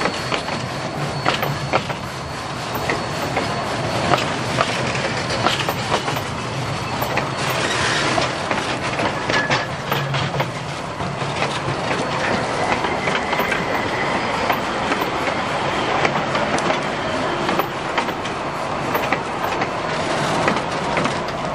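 Narrow-gauge passenger coaches rolling past: steel wheels clattering and clicking over the rail joints in a steady rumble.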